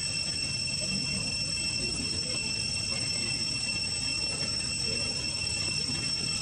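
Steady high-pitched drone of insects, held at an even pitch without a break, over a low uneven rumble.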